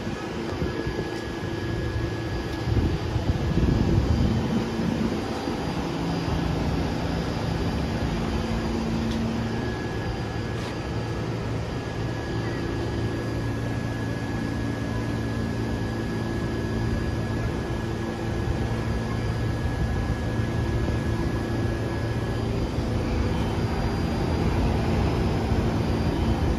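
R46 subway train's steady mechanical drone, with several constant hums and a thin high tone that runs for a stretch in the middle.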